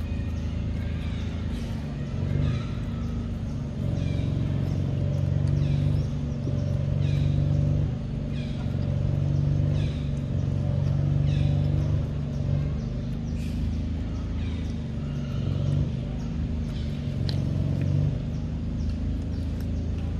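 A steady low engine hum that swells louder and eases off every few seconds, with short high chirps repeating about once a second over it.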